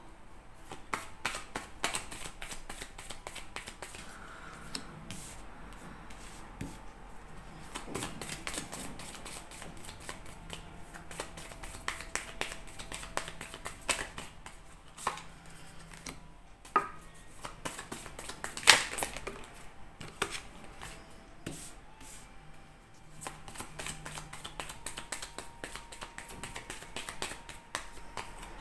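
A deck of Lenormand cards being shuffled by hand: a dense, irregular patter of card clicks, with a few sharper snaps as cards are drawn and laid on the table.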